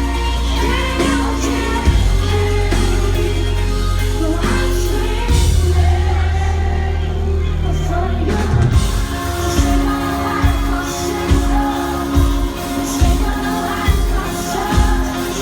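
A live band playing a song with sung vocals over sustained synth bass notes. A steady drum beat comes in a little over halfway through.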